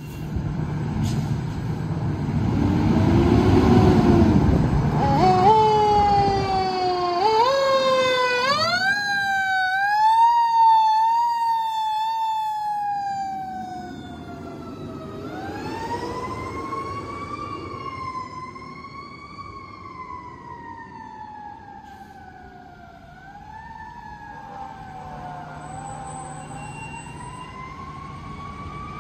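Fire engine leaving with its siren. The engine revs first. From about five seconds in, the siren winds up in quick stepped rises, then settles into long slow falls and rises in pitch, growing fainter as the engine moves away.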